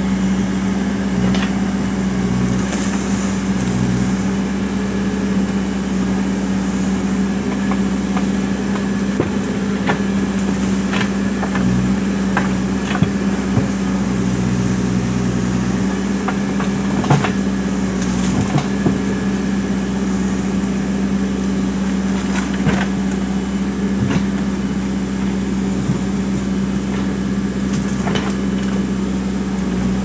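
Diesel engine of a Case 580 Super M backhoe loader running at a steady hum while the backhoe arm works. Several sharp knocks are scattered through it as the steel bucket strikes and shifts the concrete culvert pipes.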